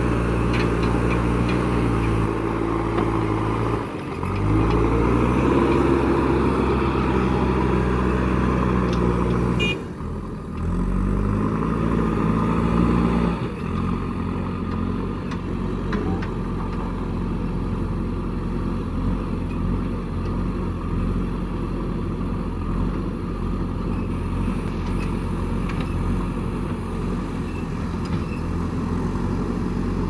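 JCB 3DX backhoe loader's diesel engine working under load as the front loader pushes and lifts soil. The revs rise and fall several times in the first half, with a rising whine a little after ten seconds, then settle into a steadier drone.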